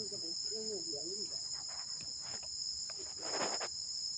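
Steady, shrill insect chorus with two unbroken high tones, over which mushrooms are rustled and shifted by hand in a woven bamboo basket, the loudest rustle about three and a half seconds in.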